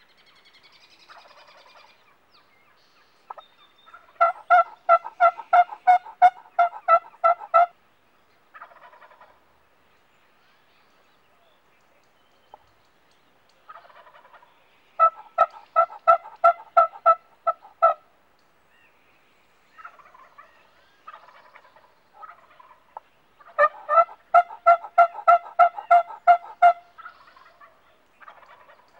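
Turkey yelping: three long runs of evenly spaced yelps, about three a second, with softer calls in between.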